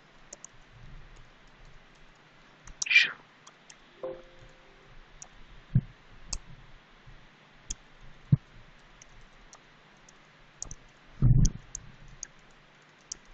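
Computer keyboard keys being typed, with sparse, irregular clicks. Two brief louder noises stand out, about three seconds in and about eleven seconds in.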